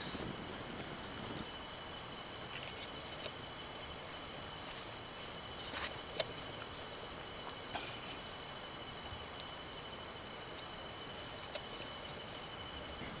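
A night insect's steady high-pitched trill, growing stronger about a second and a half in and broken by a few brief pauses, with a few faint clicks.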